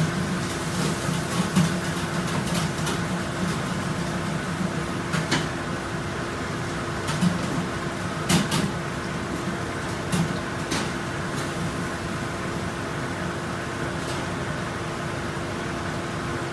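A steady machine hum with one constant tone, with scattered light clicks and knocks over the first ten seconds or so.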